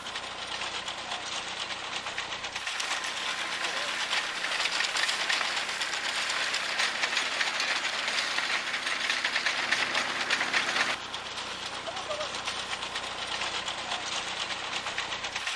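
Threshing machine running with a steady mechanical clatter and rush as wheat sheaves are fed into its drum. It grows louder about three seconds in and drops back abruptly about eleven seconds in.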